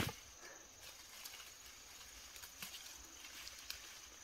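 Light rustling of fern fronds and small snaps of stems as wild greens are picked by hand, with a sharp snap right at the start and a few faint ticks after. A steady thin high tone sits underneath throughout.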